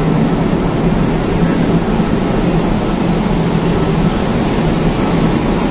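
Steady drone of a cargo ship's running machinery, with a constant low hum.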